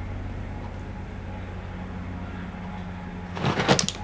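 Kitten scratching and digging in pulp cat litter inside a covered plastic litter box: a quick cluster of scratches about three and a half seconds in, over a steady low hum.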